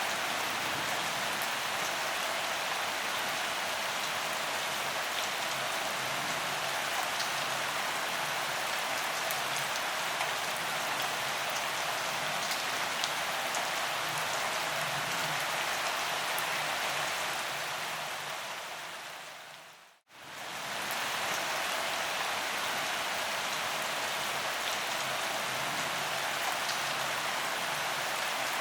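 Steady gentle rain: an even hiss of rainfall with fine ticks of individual drops. About two-thirds of the way in it fades out over a couple of seconds to a moment of silence, then comes straight back.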